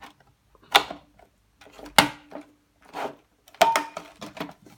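Hard plastic knocks, clicks and rubbing as the rear cover is pushed and shifted onto a Jaguar Land Rover overhead console, several sharp knocks about a second apart with a cluster near the end.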